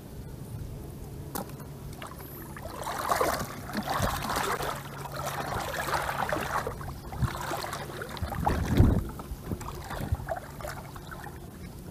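Shallow water splashing and sloshing as a wet fishing net is hauled and handled in knee-deep floodwater, busiest from about three to nine seconds in, with one heavier splash about nine seconds in.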